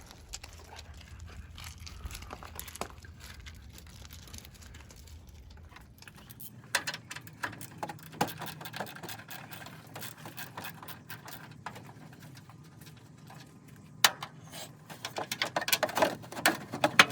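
Hand tools and metal parts being handled while the front end of a truck is taken apart: scattered clicks, knocks and rattles, with a low hum at first. They build to a busy run of quick clicks and rattles near the end.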